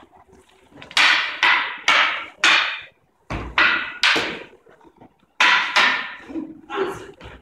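Wooden Irish fighting sticks (bata) clacking together in sparring: about a dozen sharp cracks in three quick flurries, about a second in, around three seconds in, and from about five seconds in.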